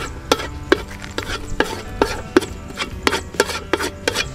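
A spatula stirring and scraping in a pan of frying garlic and shallots, with sharp, irregular knocks about three a second.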